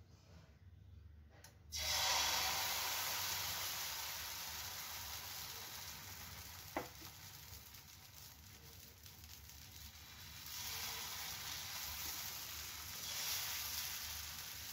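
Jowar-flour chilla batter sizzling on a hot greased tawa: the hiss starts suddenly about two seconds in and slowly dies down. It swells again near the end as more batter is ladled on and spread. A single sharp click a little past the middle.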